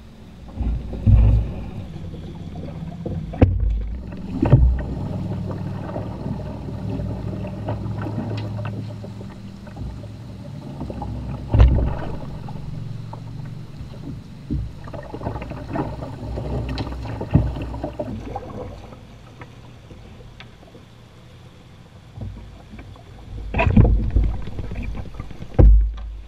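A canoe pole being planted and pushed through a shallow rapid, making irregular knocks and thumps against the canoe and riverbed over the steady rush of water along the hull. The loudest thumps come near the end.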